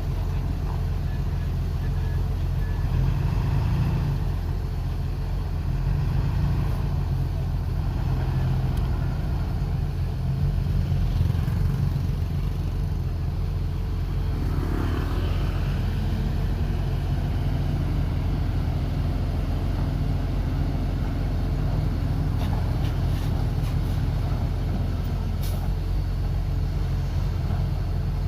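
Heavy diesel engine of earthmoving machinery, a bulldozer or dump truck, running steadily as a low rumble, swelling slightly a few times under changing load.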